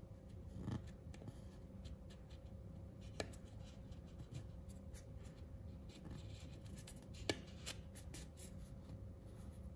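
Faint scratching and small ticks of a thin metal pick worked around the seam between an LED bulb's plastic diffuser dome and its plastic housing to pry the dome off, with two sharp clicks, about three seconds in and again about seven seconds in.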